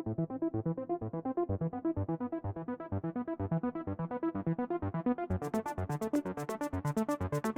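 Electronic background music with a steady beat. Its sound gets gradually brighter and opens up fuller about five seconds in.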